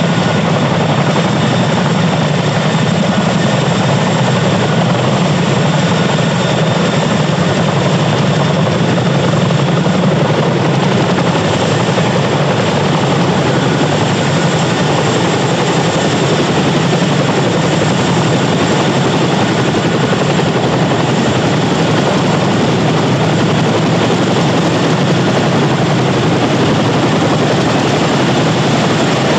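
Boeing CH-47F Chinook tandem-rotor helicopter hovering low over water, a loud, steady roar of its twin turboshaft engines and rotors, with the downwash driving spray across the water's surface.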